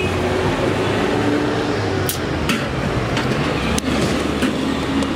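Steady street noise with several sharp clinks of glass soda bottles and tumblers being handled on a stall counter, the first about two seconds in.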